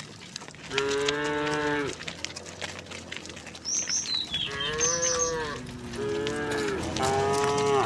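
Cows mooing: about four drawn-out moos of roughly a second each, the last two back to back near the end. A bird chirps a few times in the middle.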